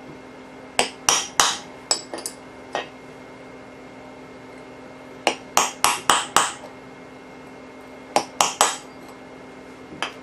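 Hammer striking a steel punch to tap old rivets out of an AK-47 trunnion. Sharp metallic strikes with a short ring after each come in quick bursts of three to six blows, separated by pauses of a couple of seconds.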